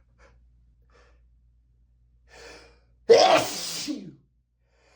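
A person sneezing in a fit of allergy sneezes. There is a quick intake of breath about two and a half seconds in, then one loud sneeze about three seconds in that trails off over about a second.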